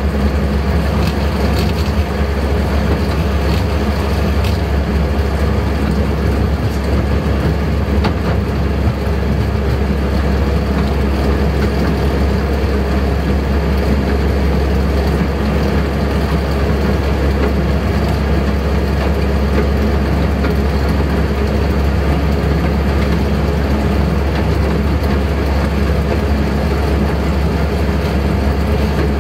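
Miniature railway locomotive and train running steadily along the track, heard from the cab, with a continuous low running noise.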